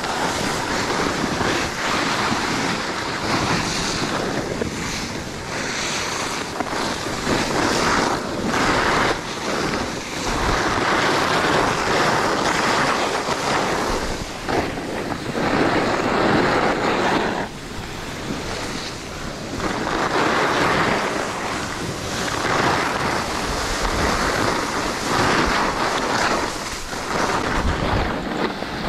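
Skis scraping over hard, somewhat icy snow on a downhill run, mixed with wind buffeting the microphone: a continuous rushing noise that swells and fades every few seconds.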